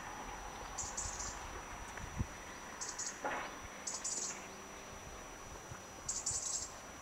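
Outdoor ambience with short, high chirps from a small animal, in four brief clusters each under half a second, over a faint steady high whine. About three seconds in there is one quick whistle that falls steeply in pitch.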